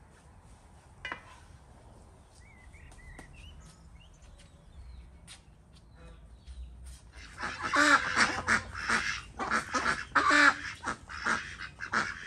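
A flock of domestic ducks quacking loudly, in many repeated calls that start about seven seconds in. Before that there are only faint clicks and a few faint chirps.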